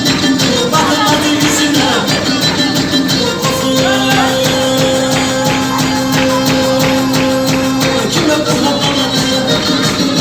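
Lively horon dance music: a fast, even percussion beat under a melody instrument that holds one long note from about four seconds in until about eight.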